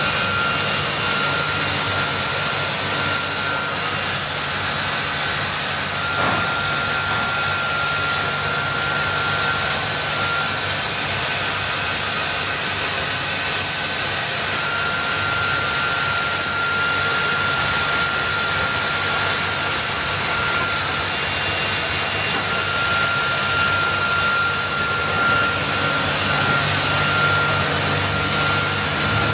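Biesse Rover 23 CNC woodworking machining center running: a loud, steady rush with a few high whining tones held at constant pitch and a low hum beneath.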